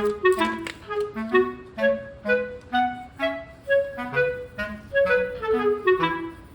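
Light instrumental background music: a bouncy tune of short, separate notes, led by a woodwind such as a clarinet.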